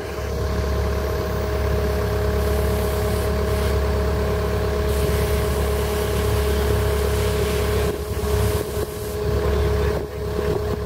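An engine or motor running steadily: a low rumble with a steady whine held at two pitches.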